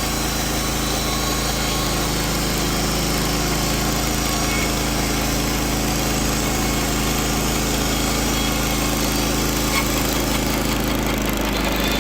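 Wood-Mizer LT15WIDE portable band sawmill running steadily under power, its engine holding an even note while the band blade cuts through a cedar log. The engine note dips slightly near the end.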